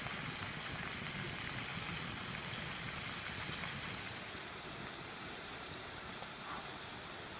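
Potato sticks frying in hot oil in a cast-iron pan: a steady sizzle that eases slightly in the second half.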